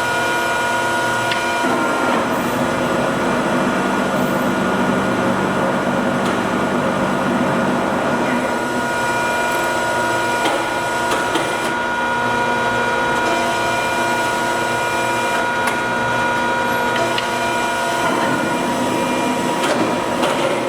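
Jones & Lamson Model 5-3 ram-type turret lathe running under power, a steady machine hum and gear whine made of several held tones. The pitch pattern changes about two seconds in and again near the end.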